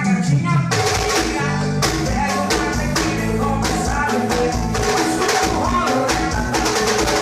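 Band music with a steady beat: bass, drums and percussion come in fully about a second in.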